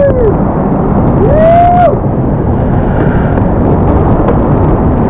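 Loud, steady rushing of whitewater rapids close to the microphone. A high whooping call rises and falls, fading just after the start and coming again about a second and a half in.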